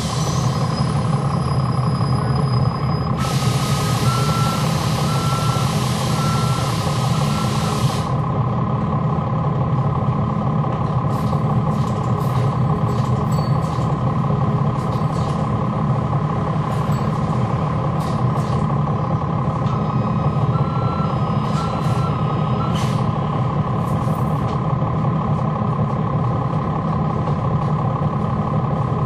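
Cummins ISL9 inline-six diesel of a NABI 40-SFW transit bus running steadily, with its engine cooling fans on, heard from on board. A long hiss of air from about three to eight seconds in, with a run of short beeps over it. More beeps come around twenty seconds in, and scattered clicks and rattles in the middle stretch.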